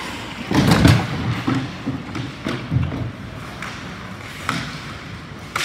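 Ice hockey play close to the glass: a heavy thud against the rink boards about half a second in, then scattered sharp clacks of sticks and puck and skates on the ice, ringing in the large rink.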